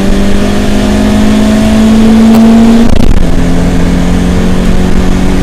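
BMW E30 318is's four-cylinder engine accelerating with the pitch climbing steadily, then an upshift about three seconds in: a brief break and a drop in pitch before it pulls up again. Heard from inside the cabin, with road and wind noise underneath.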